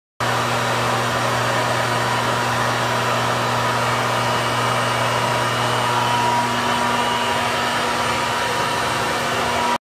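Soot vacuum motor running steadily: a loud, even rushing whir over a constant low hum and a thin whine. It cuts off suddenly near the end.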